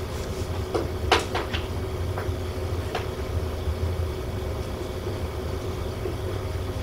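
Dry-erase marker writing on a whiteboard: a handful of short taps and squeaks of the pen in the first three seconds, over a steady low room hum.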